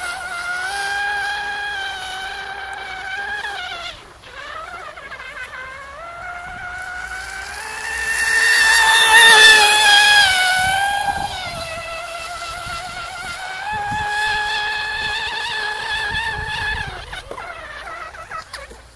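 F1-class radio-controlled model racing boat's motor whining at high speed as it laps the course. The whine dips briefly about 4 seconds in and again near the end. It is loudest about 9 to 11 seconds in, its pitch rising and then falling as the boat passes close.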